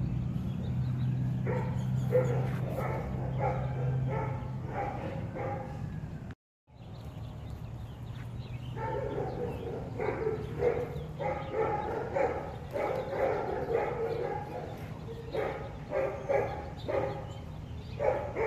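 Dogs barking in short, rapid runs over a steady low hum. The sound cuts out briefly about six seconds in.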